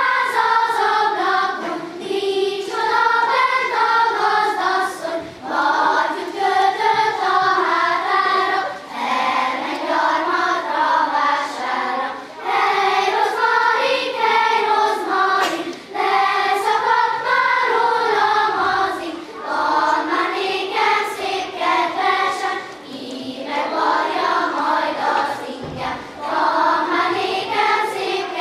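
Children's choir singing in Hungarian, in phrases of a few seconds with short breaks between them.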